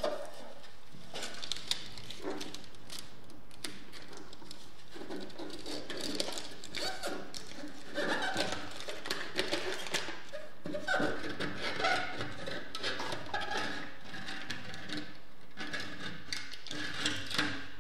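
Aluminium foil tape crinkling and crackling as gloved fingers rub it flat onto a metal oven panel, with the backing paper being peeled off. Irregular small crackles and scrapes, with a few short squeaks.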